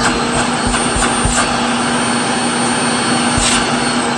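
Samsung VC-BK650M canister vacuum cleaner's motor running steadily at full speed with a high whine and a few sharp clicks, in a final test after its carbon brushes were checked: the motor runs properly.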